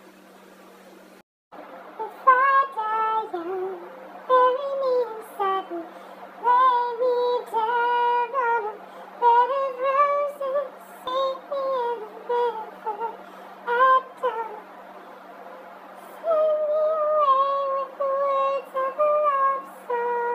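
A woman singing a slow melody unaccompanied, in short phrases with brief pauses, starting about a second and a half in, over a steady low hum.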